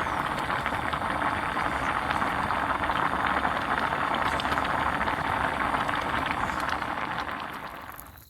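Pork frying in a hot pan, a steady dense sizzle that fades out near the end.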